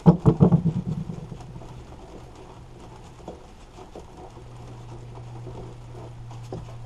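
Quick metallic clicking and rattling as the lawn mower's blade bolt is unscrewed, for about the first second and a half. After that a steady low hum carries on with faint ticks.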